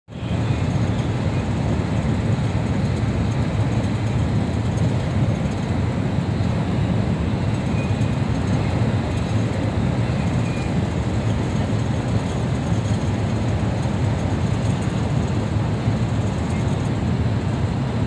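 Steady low rumble of tyre and engine noise from a road vehicle at motorway speed, heard from inside the cabin.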